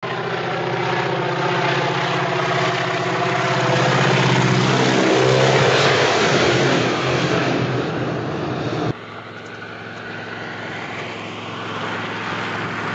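Propeller-plane engine drone, growing louder toward the middle and then cut off abruptly about nine seconds in, leaving a quieter background hum.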